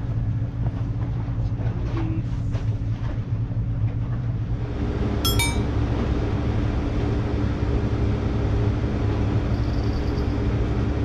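Steady low engine drone with a constant hum, growing fuller about halfway through. A short high chirp about five seconds in.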